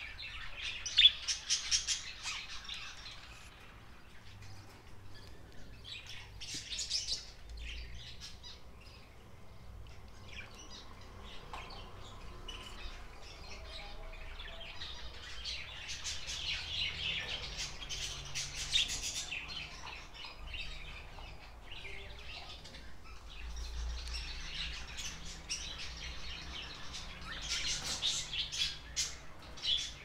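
Budgerigars chirping and chattering in bursts of rapid high chirps, a few seconds apart, with quieter stretches between.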